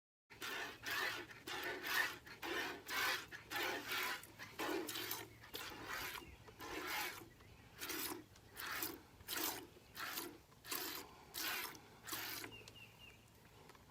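Goat being milked by hand: short hissing squirts of milk into a pail, about two a second in a steady rhythm, stopping near the end.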